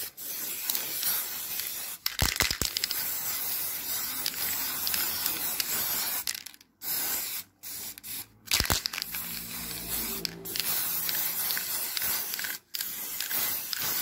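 Aerosol spray-paint can spraying in long hissing bursts with short pauses between them, as paint goes onto a metal vent grille's louvres and mesh. A few sharp clicks about two seconds in and again near nine seconds.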